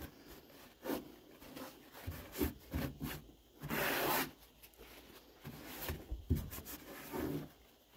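Paper towel rubbing and wiping across a plastic kayak deck in irregular strokes, with one longer, louder swipe about halfway through. It is the wiping-off of excess sealant from around a freshly mounted rod holder.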